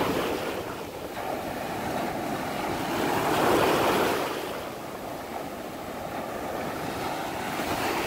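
Small North Sea waves breaking and washing up over the sand at the water's edge, the surf swelling at the start and again about three and a half seconds in.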